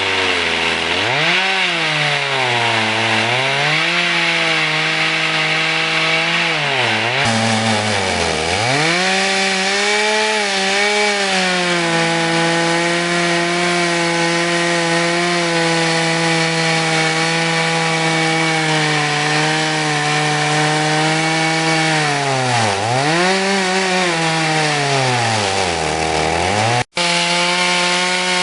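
Two-stroke chainsaw running at high revs while cutting wood on a homemade portable chainsaw mill. The engine note sags and picks back up several times under the load of the cut, then holds steady for a long stretch. The sound drops out for a split second near the end.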